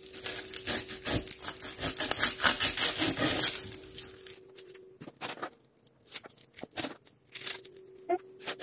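Kitchen knife cutting through an onion on a bamboo cutting board. A quick run of sawing strokes lasts about four seconds, then gives way to sparser, separate scrapes and knocks of the blade on the board.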